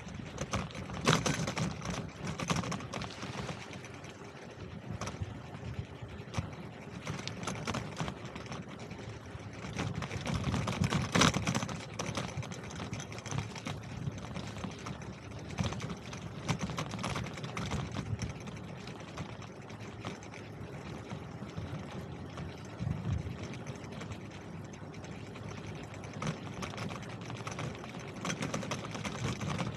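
Bicycle on the move: a steady rolling rumble with fast, uneven rattling and ticking, swelling louder about a second in and again around eleven seconds in.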